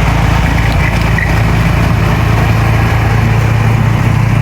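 Craftsman 30-inch snowblower's four-stroke gas engine running steadily after its first start of the season, a constant low hum.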